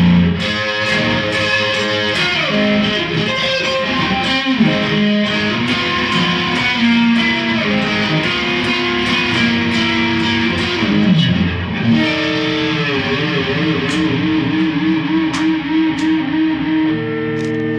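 Electric guitar played solo: sustained single notes and chords with slides and string bends, then a held note shaken with wide vibrato over the last few seconds.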